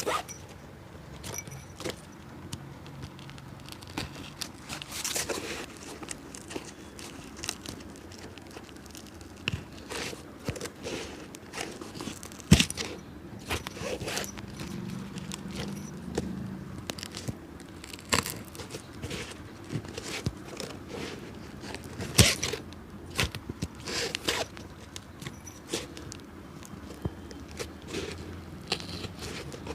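A cobbler's hand tools working on a leather shoe: irregular scraping, rustling and small clicks, with two sharper knocks, one about twelve seconds in and one about twenty-two seconds in.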